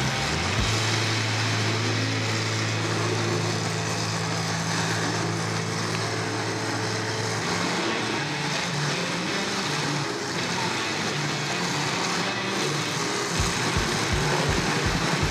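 Demolition derby car engines running over general arena noise, with music playing; a steady bass-drum beat comes in near the end.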